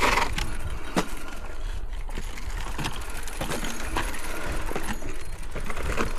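Mountain bike clattering over a rough dirt trail, chain and frame rattling with sharp knocks, the loudest right at the start and about a second in, over a steady rumble of wind on the camera microphone.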